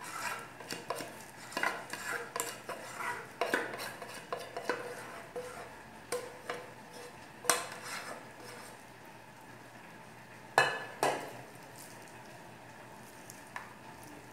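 A metal spoon scraping thick cornstarch cream out of an aluminium saucepan into a glass baking dish: irregular scrapes and clinks of metal on metal, with a sharp knock about seven and a half seconds in and two more about eleven seconds in. It grows quieter near the end.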